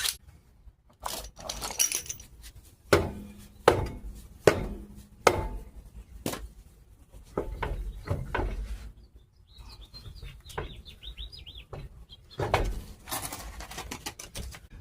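Scattered metal clanks and knocks as tools and brake parts are handled and set down. A bird chirps briefly about halfway through.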